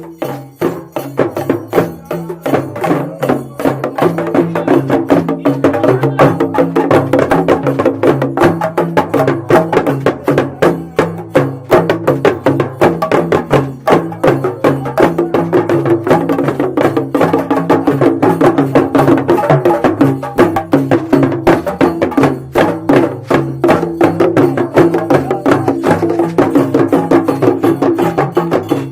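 Instrumental Yoruba traditional drumming: a dense, fast beat of sharp knocking strokes over low drum notes stepping between a few pitches, without singing.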